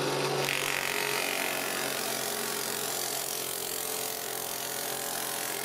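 Cheap low-power benchtop drill press spinning a homemade plywood sanding drum: a steady motor hum under the even hiss of sandpaper rubbing against the edge of a curved plywood workpiece, the sanding noise starting about half a second in.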